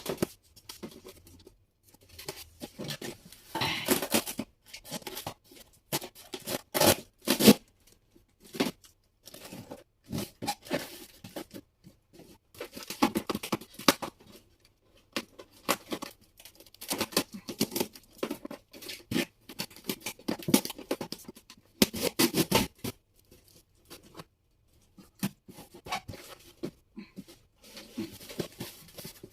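A sewing machine's packaging being handled and torn open: irregular bursts of tearing and rustling with scattered clicks and knocks.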